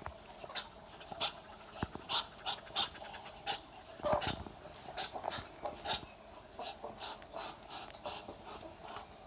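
Muscovy duck hissing over and over in short, breathy puffs, about two a second. The loudest comes about four seconds in.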